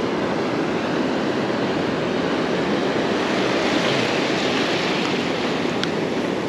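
Shallow ocean surf washing in over sand, a steady rush of waves and foam that swells a little around the middle.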